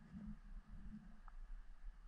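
Faint, muffled low thumps and rumble of water and movement against an underwater camera housing while the diver swims, with a faint click partway through.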